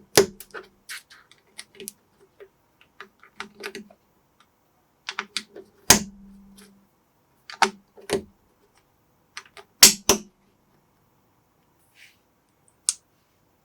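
Plastic building bricks being handled and pressed together: irregular sharp clicks and taps, with a few louder snaps in the middle and a quieter stretch near the end.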